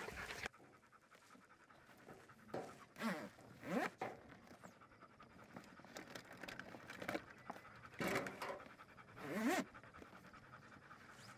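Dogs panting, with a couple of louder spells of clunks and short rising squeaks while they are loaded into plastic kennels in a pickup bed.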